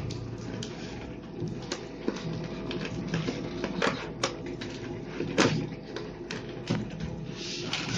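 Plastic fish-transport bag being handled and opened, crinkling with irregular sharp crackles and clicks, the loudest a little past five seconds in.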